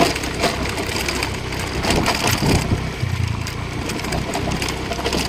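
A small motorbike engine running steadily as it rides along a rough path, with irregular knocks and crunching from the bumpy surface.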